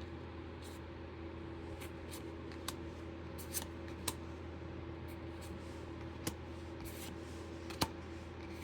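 Steady hum of computer fans, with scattered sharp light clicks and snaps of trading cards being handled and flipped.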